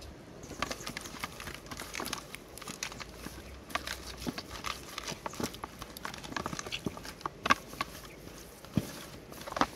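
Hands rubbing a spice rub into raw plucked duck carcasses on a bamboo tray: irregular pats and slaps of palms and fingers on the skin and meat, with a couple of sharper slaps in the second half.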